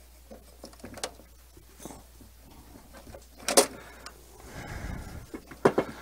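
Knocks and clicks of rubber condensate hoses and plastic fittings being handled and reconnected on a furnace's inducer housing and condensate trap, with a sharp knock about three and a half seconds in, a low rumble just before five seconds, and two quick knocks near the end.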